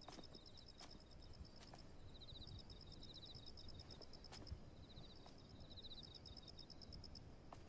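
Faint night ambience: insects chirping in short, rapid, high pulse trains that repeat every second or two, with a few faint scattered clicks.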